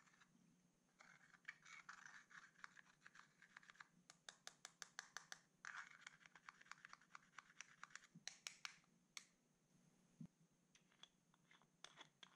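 A metal-tipped pick scraping and prying pressed eyeshadow out of a plastic compact, crumbling the powder: faint scratching alternating with runs of quick sharp ticks as the tip catches and taps against the compact, thinning to a few scattered clicks near the end.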